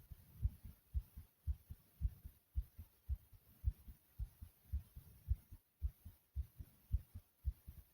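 A human heartbeat thumping: steady low thumps, about two beats a second.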